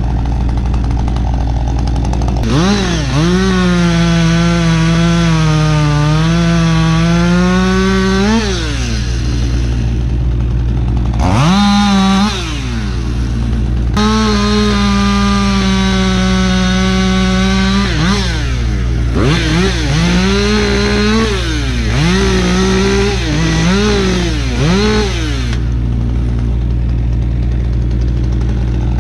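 Two-stroke chainsaw at full throttle cutting wood: its pitch sags as the chain bites and climbs again as it frees, with the throttle let off several times between cuts. A steady low engine drone runs underneath.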